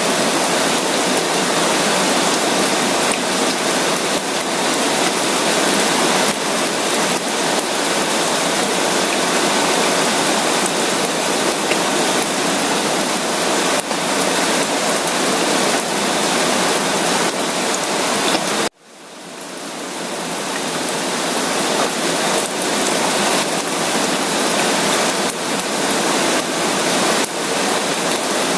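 Steady, dense rain, a close patter of drops over a constant hiss. About two-thirds of the way through it cuts out abruptly and swells back in over a second or two, like a seam in a looped recording.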